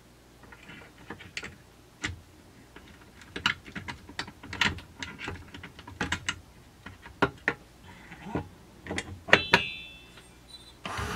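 Irregular light clicks and clacks of metal chainsaw parts being handled as a piston, wrist pin and cylinder are fitted by hand onto a Husqvarna 372XP-clone crankcase. There is a brief metallic ring about nine and a half seconds in, and a louder clatter near the end.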